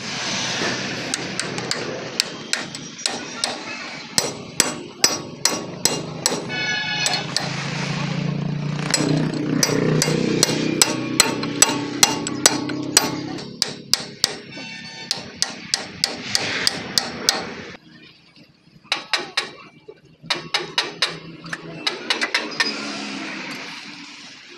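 Steel hammer striking the metal wheel hub of a Tata truck, in runs of quick, sharp blows; a few blows ring with a metallic note. The blows stop briefly near the end and then resume.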